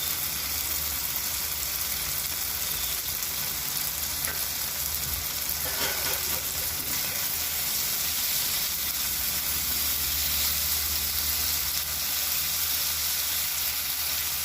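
Drumstick, brinjal and potato poriyal sizzling steadily in oil in a pan; the oil has separated from the vegetables, the sign that the dish is cooked through.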